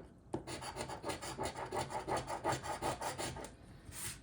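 Scratch-off lottery ticket being scratched: quick, repeated scraping strokes across the card's latex coating. The scraping stops about three and a half seconds in, with one more short scrape just before the end.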